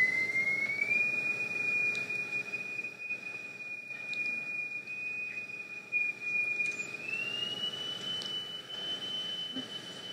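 A single high-pitched sine tone from an oscillator driving a cymatics plate. It glides up a little about a second in, holds, then glides up again about seven seconds in; each pitch change is what reshapes the vibration pattern on the plate.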